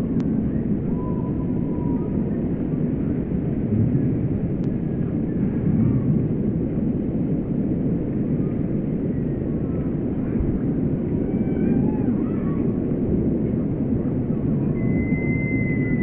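Steady low background rumble with faint high calls of small birds here and there. Near the end, one long thin whistled note falls slightly in pitch.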